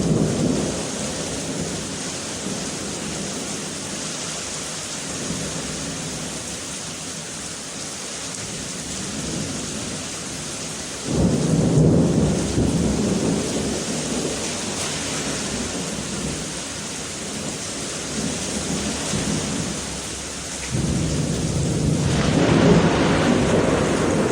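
Heavy rain pouring steadily in a kalbaisakhi (nor'wester) thunderstorm, with low rumbles of thunder swelling up about halfway through and again near the end.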